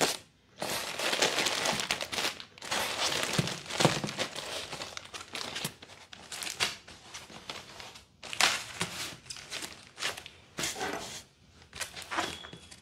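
Plastic wrapping and bags crinkling and rustling in irregular bursts as hands handle the wrapped soundbar and its accessory packs in a foam packing box.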